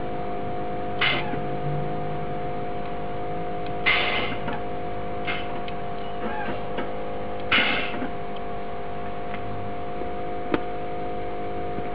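Air suspension on a lowered Fiat Punto, with its valves letting out three short bursts of air over a steady hum, and a sharp click near the end.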